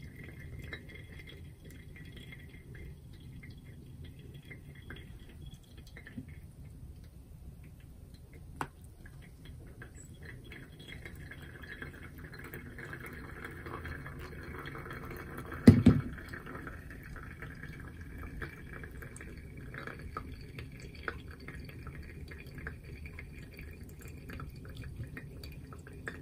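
Coffee dripping through a Kalita wave pour-over dripper into a glass server, with hot water poured from a gooseneck kettle onto the grounds in the later part. A single sharp knock comes a little past halfway and is the loudest sound.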